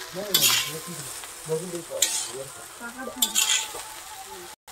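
Spatula scraping and turning fried rice in a kadai of hot ghee, with a steady sizzle; three scraping strokes about a second and a half apart.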